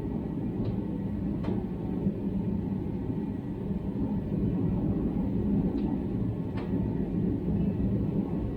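A steady low rumble with four faint, light clicks, two about a second in and two near six seconds in.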